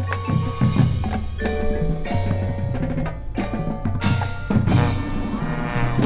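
Marching band music: mallet percussion ringing out with sharp percussion hits over sustained low bass notes.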